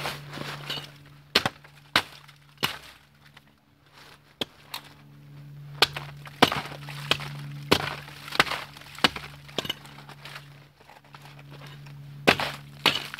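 Ice being chipped with a hand tool: about a dozen sharp, cracking strikes at irregular intervals, with a glassy clink as chips break off.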